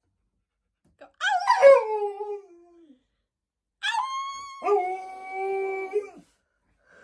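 Alaskan malamute howling twice. The first howl, about a second in, falls in pitch. The second, longer howl starts about four seconds in and holds one pitch after a drop.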